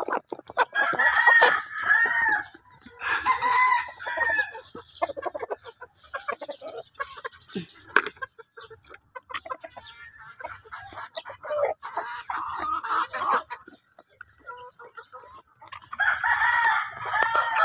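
A flock of chickens clucking, with roosters crowing in three loud bouts: about a second in, around three seconds in, and again near the end. Quieter clucks and small clicks fill the gaps.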